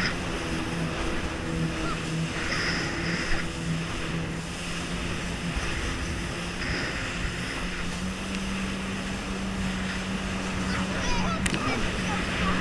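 Jet ski engine running steadily under way, with water rushing and wind over it. The engine's pitch rises a little about eight seconds in.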